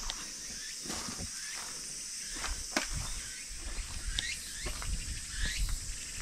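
Footsteps on a dirt path strewn with dry leaves, over a steady high insect drone and a few short bird chirps, with low wind rumble on the microphone from about halfway through.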